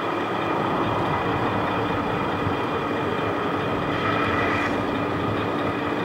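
Radio-controlled Mercedes-Benz Actros MP3 model dump truck running as it creeps across sand: a steady mechanical whine made of several held tones over a hiss.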